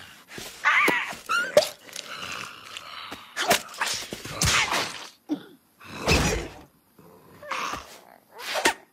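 Cartoon vocal effects and impacts: short, bending squawk-like cries from the cartoon bird, several quick hits, and a heavy thud about six seconds in.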